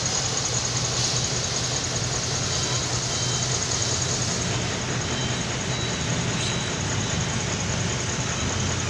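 Truck engine running steadily with a low drone, a steady high-pitched whine over it.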